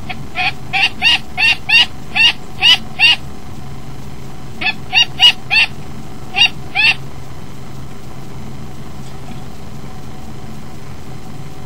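A bird calling in two rapid runs of loud, sharp repeated notes, about three a second: nine notes, a pause, then six more.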